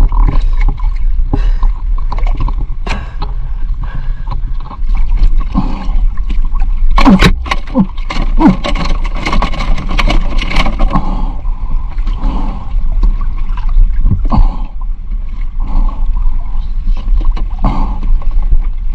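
Water sloshing and gurgling around a small boat, with scrapes and knocks close to the microphone over a steady low hum. A few sharper knocks or splashes come around the middle.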